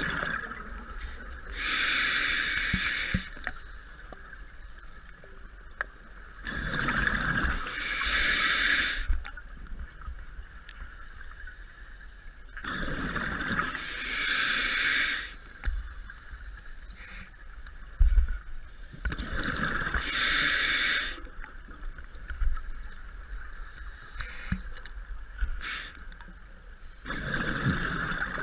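Diver breathing through an open-circuit scuba regulator underwater: about five slow breaths, each a hiss followed by a burst of bubbling exhaust, roughly every six seconds, over a low steady rumble. One sharp knock partway through.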